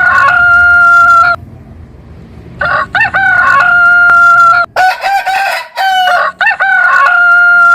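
Rooster crowing, cock-a-doodle-doo, again and again: one crow ends about a second in, then three more follow, each ending in a long held note.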